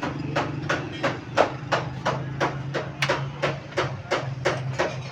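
Steady hammering: sharp, evenly spaced strikes, about three a second, over a steady low engine-like hum.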